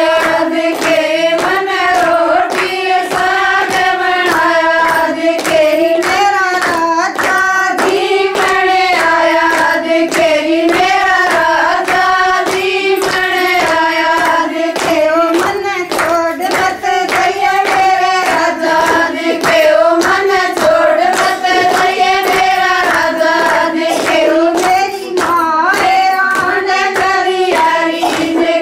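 Women singing a Haryanvi folk song together, with long held, wavering notes, over steady rhythmic hand clapping.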